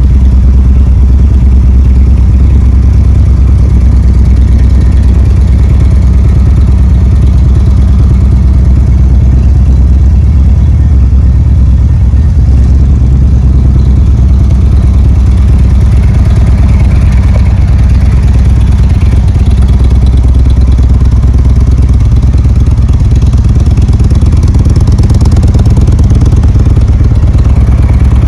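2017 Indian Chieftain's air-cooled Thunder Stroke 111 V-twin idling steadily, loud and even.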